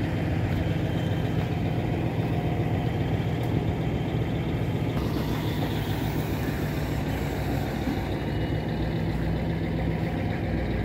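Diesel engine of a MAZ timber truck idling steadily.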